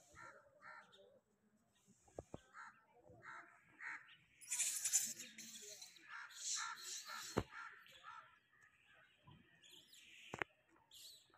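Crows cawing: harsh calls coming in two clusters around the middle, with a few sharp clicks scattered through.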